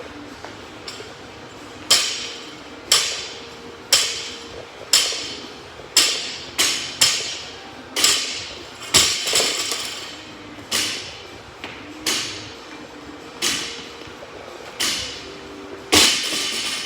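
Gym weights, most likely a loaded barbell, set down hard on the floor again and again: about fifteen sharp clanks with a ringing echo, roughly one a second and slowing slightly near the end, the rhythm of reps in a workout set.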